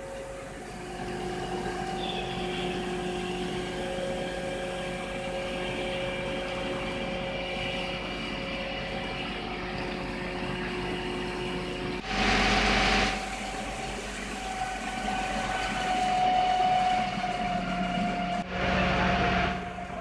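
Fire engine running steadily at a fire scene, its engine and pump giving a drone of several steady tones. Two loud bursts of noise, about a second each, come about halfway through and near the end.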